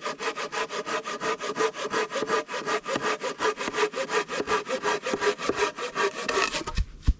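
Hand saw cutting through a wooden pole in rapid, even strokes as a shelter post is trimmed to length. The strokes stop shortly before the end, followed by a single thump.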